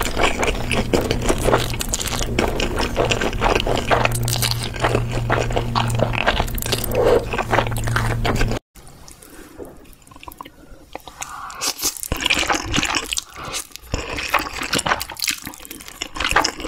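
Close-miked slurping and chewing of black bean noodles, wet and sticky clicks, with a steady low hum under them. A little past halfway the sound cuts out abruptly, then quieter slurping and chewing of noodles follows.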